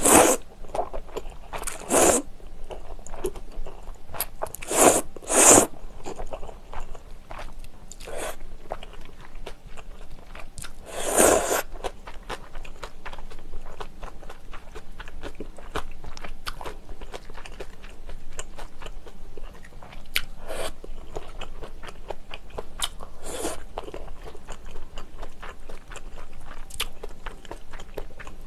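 Close-miked eating of spicy jjamppong noodle soup: several loud slurps of noodles in the first dozen seconds, then steady wet chewing.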